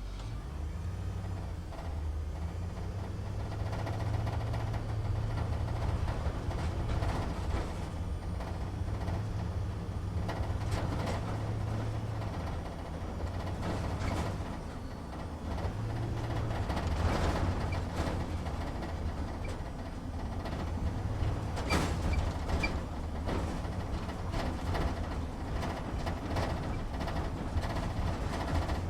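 Truck cab interior while driving slowly: the engine's low, steady drone with the cab rattling and knocking over bumps, the knocks clustering about halfway through and again a little later.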